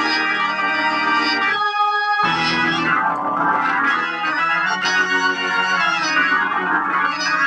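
Hammond organ playing sustained chords through an amplifier whose cheap capacitors have just been replaced, as a sound check. There is a brief change to a thinner chord about two seconds in.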